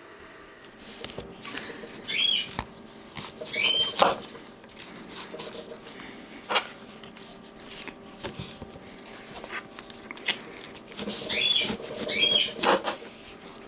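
Short high chirping calls, like a small bird's, come in pairs, once early and again near the end. Scattered sharp clicks and knocks sound over a faint steady hum.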